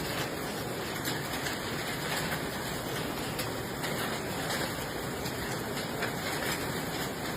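Steady rain falling: a dense, even hiss with faint scattered ticks of drops.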